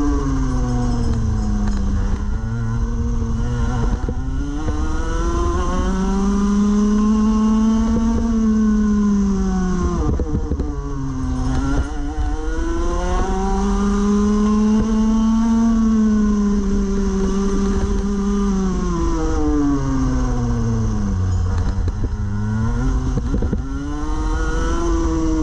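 Rotax Max Evo 125cc two-stroke single-cylinder kart engine at race pace, heard from on the kart: its note climbs steadily as it accelerates, holds near the top, then drops steeply under braking for the corners, about three times over. A steady low rumble runs underneath.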